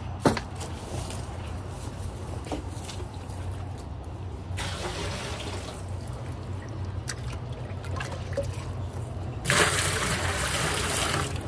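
Water poured from a small bucket splashing into a large metal basin already partly full: a brief pour about four and a half seconds in, then a longer, louder pour near the end. A single sharp knock sounds just after the start.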